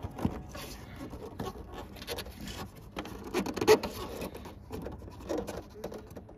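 Hands handling the rubber dust cover and bulb socket at the back of a car headlight: scraping and rubbing with scattered small clicks of rubber and plastic, one sharper click about three and a half seconds in.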